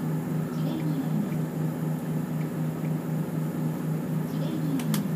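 Cabin noise inside a route bus under way: the diesel engine and road noise make a steady low drone. Two sharp clicks come near the end.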